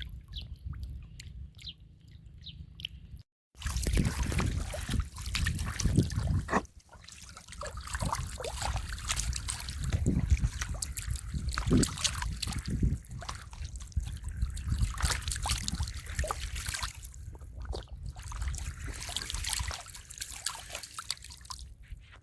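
Shallow muddy water splashing and sloshing with many small splashes and trickles. Faint dripping at first; after a brief dropout about three seconds in, the splashing becomes louder and busier.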